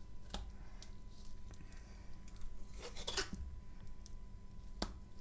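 Sticky chalk paste being pressed and tamped into a mould by hand: faint squishing and handling noise with a few sharp little clicks and a short scraping rustle about three seconds in.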